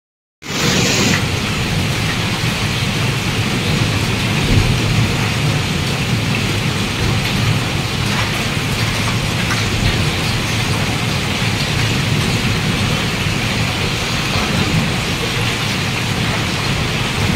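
A hailstorm pelting down, a steady dense hiss of hail and rain, cutting in suddenly about half a second in.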